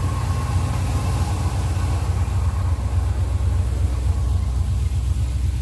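1981 Chevrolet C10 Silverado pickup's engine idling with a steady, low sound.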